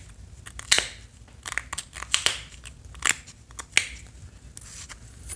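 Pressure-flaking a notch into a stone arrowhead with a flattened-nail notching tool: a run of sharp clicks and crackles as small flakes pop off the edge, about six in a few seconds.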